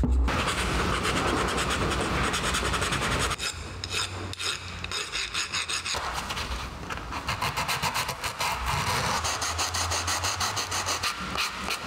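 Hand file rasping across a tape dispenser's metal cutter blade in quick repeated strokes, then a coarse sanding block rubbing back and forth on it, to clean off old glue and surface rust.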